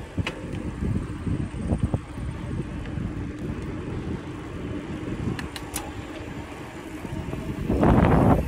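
Wind buffeting a moving bicycle rider's microphone over the rolling noise of bike tyres on pavement, a steady low rumble that gets louder near the end.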